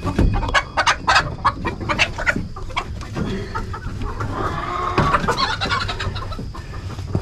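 Chickens clucking and squawking as one is caught by hand inside a wooden coop, with a run of quick knocks and scuffles in the first few seconds.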